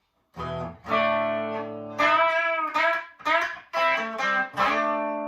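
Chibson Les Paul Custom electric guitar on its middle pickup setting, both pickups on, played clean through a Marshall DSL40 combo amp. After a short pause it plays a run of picked chords and single notes that ring on between strokes.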